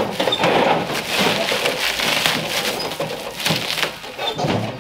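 Plastic wrap crinkling and rustling as it is handled around a stainless-steel trash can, with scattered light clicks and knocks.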